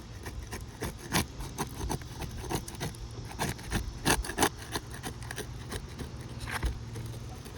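Asphalt roof shingles being handled and worked on: irregular rubbing, scraping and clicking of the shingle material, over a low steady hum.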